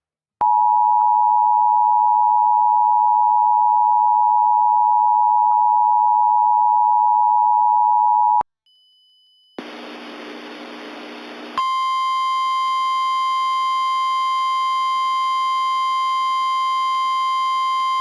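Emergency Alert System attention signal: the two-tone alarm (853 and 960 Hz) held steady for about eight seconds, then cut off sharply. After a short pause and a couple of seconds of noisy hum, a single steady tone near 1 kHz sounds with a buzzy layer of overtones.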